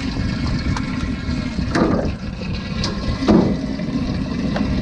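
Sportfishing boat's engine running with a steady low rumble, and water splashing against the boat twice, about two seconds and three and a half seconds in.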